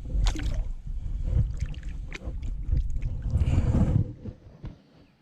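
Knocks, clicks and low rumble of handling on a small fishing boat, with a louder rushing burst about three and a half seconds in; the sound dies down near the end.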